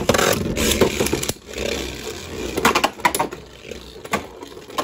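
A Hasbro and a Takara Tomy Savior Valkyrie Beyblade, launched with a ripcord, spinning and grinding around a clear plastic stadium. The whirring scrape is loudest for the first two seconds, then eases, broken by a few sharp clacks as the tops hit each other.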